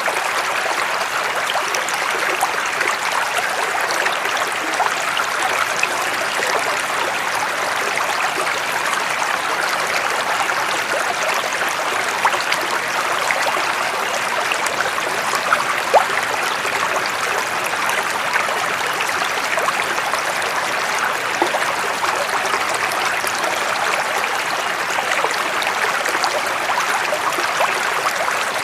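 Running water flowing steadily in an even rush, with many small splashes and droplet ticks scattered through it.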